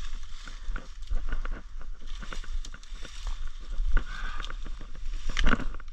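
Dry leaves and twigs crackling and snapping as brush and saplings are cut and pushed aside with hand tools, with one louder crack about five and a half seconds in.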